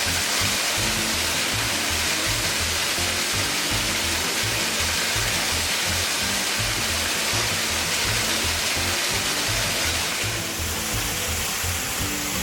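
Steady rushing of a small desert waterfall, an even hiss of falling water that eases slightly about ten seconds in, under background music with a repeating bass line.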